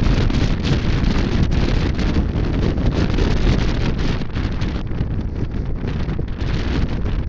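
Wind buffeting the microphone of a camera on a moving motorcycle, with the motorcycle's engine and road noise beneath; it eases slightly about five seconds in.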